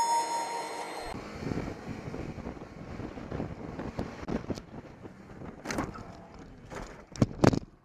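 A vehicle on the move with road noise and wind buffeting the microphone, with two loud sharp knocks near the end.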